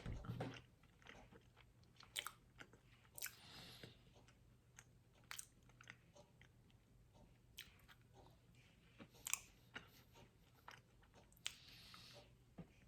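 Faint chewing and biting: a person eating a dark chocolate brownie, with scattered soft mouth clicks and a few short breathy rustles.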